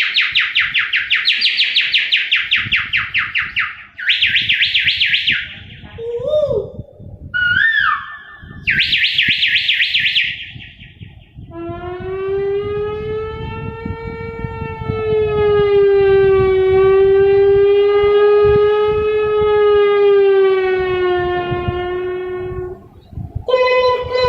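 A mimicry artist making sound effects with his mouth: rapid, high warbling trills like birdsong for about ten seconds, a few short whistled glides up and down, then a long siren-like tone held for about eleven seconds, wavering slowly in pitch.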